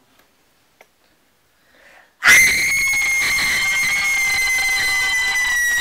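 Teenagers screaming in shock: after about two seconds of near silence with a few faint clicks, one long, steady, high-pitched scream starts and holds for about four seconds.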